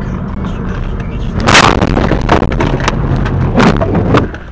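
A vehicle collision. Steady engine and road noise, then a loud crash about a second and a half in, followed by several more sharp bangs and crunches over the next few seconds.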